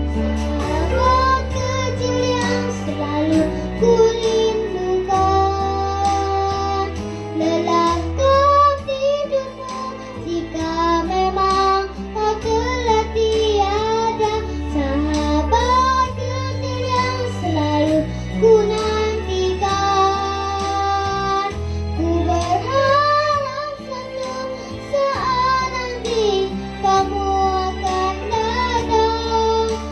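A solo voice singing a slow pop ballad over a backing track, holding long notes with vibrato above a steady bass accompaniment.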